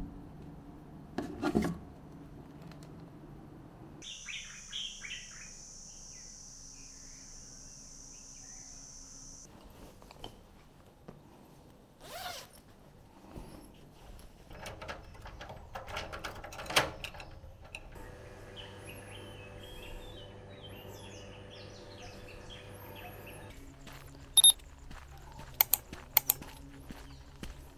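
Rustling and handling noises as a bag and clothes are packed, then birds chirping over a steady background hiss, and near the end footsteps on a dirt road.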